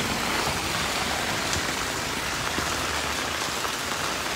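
Steady rain falling on a wet paved street: an even, continuous hiss of rain.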